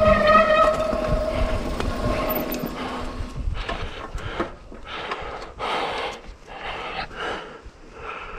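Mountain bike disc brakes squealing with a steady howl under hard braking over tyre noise on a dirt trail, fading out after about two and a half seconds as the bike stops. Then a series of short puffs of hard breathing.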